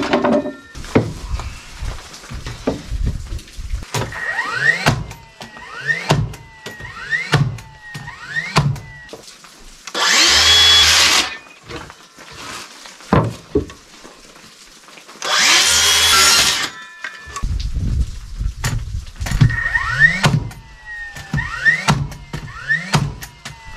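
Cordless circular saw making two short cuts through plywood, about ten and fifteen seconds in. Between the cuts, a cordless drill/driver whirs up again and again in short rising bursts as screws go into the plywood, with knocks of boards being handled.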